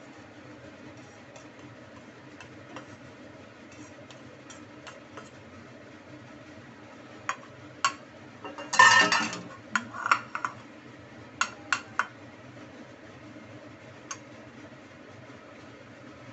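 Metal spatula knocking and scraping against a wok and dishes: a few sharp clinks, then a louder scrape lasting about a second, about nine seconds in, followed by a quick cluster of clinks.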